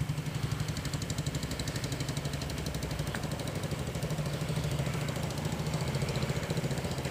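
Engine of a homebuilt 1963 tractor running steadily with an even, rapid putter, getting slightly louder toward the end as it approaches.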